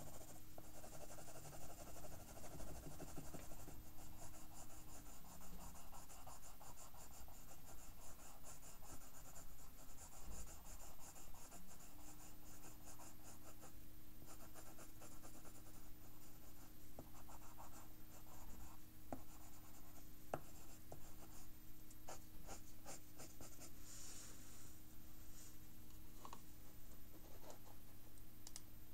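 Pencil scratching on paper in quick back-and-forth shading strokes, growing sparser near the end.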